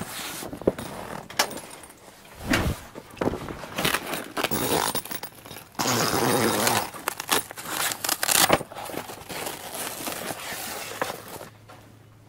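A canvas awning wall being handled and fitted: irregular rustling and scraping with sharp clicks, settling to quiet near the end.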